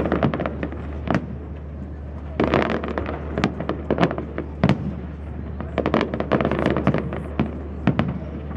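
Aerial fireworks going off in quick volleys of bangs and crackling cracks: one volley at the start, another from about two and a half seconds in, and a third from about six seconds in.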